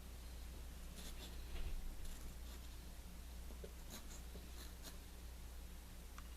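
Faint scratching of a drawing tool being drawn across a surface in short, separate strokes, over a steady low hum.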